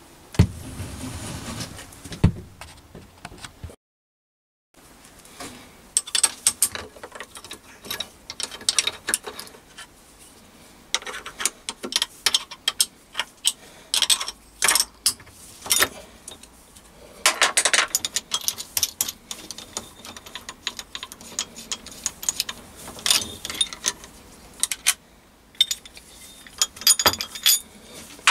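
Irregular metal clinks and clicks as a hex key loosens the clamping bolts on a steel angle plate and a metal workpiece is unclamped and lifted off, after a brief steady noise at the start.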